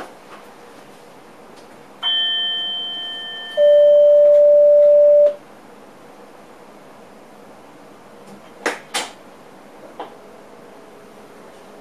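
Electronic warning signals in a train driver's cab: a chime about two seconds in that dies away, then a loud, steady single-pitched beep lasting under two seconds. Two sharp clicks follow a few seconds later.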